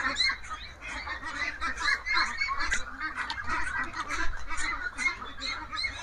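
A flock of young Peking ducks calling all at once: a dense, continuous chatter of many short, high calls.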